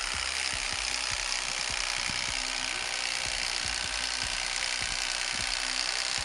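Electric fillet knife running steadily, a continuous even hiss-like motor noise, as its blade saws through a fish fillet.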